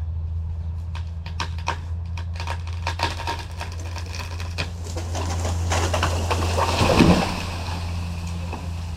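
A felled tree coming down: scattered sharp cracks, then a swelling rush of branches and foliage that ends in a heavy thud on the ground about seven seconds in. A steady low engine hum runs underneath throughout.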